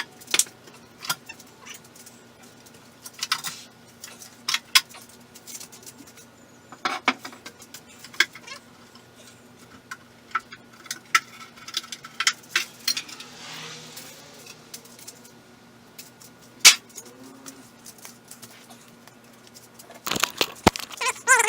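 Irregular metallic clinks and knocks of hand tools and engine parts being handled, over a faint steady hum. Near the end a wavering, high-pitched sound begins.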